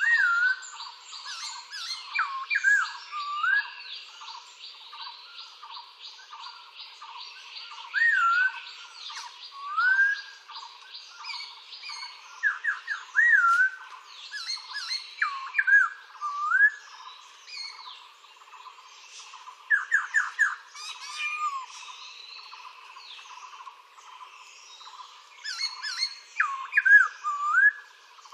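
Recorded birdsong from several birds: clear whistled notes gliding up and down in short phrases, over a fast high trill in the first few seconds.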